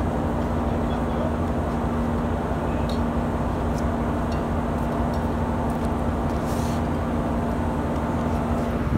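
Steady drone of a ship's machinery: a constant low rumble with an unchanging hum running through it.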